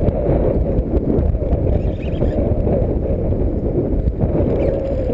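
Wind buffeting the microphone, a steady low noise with no breaks.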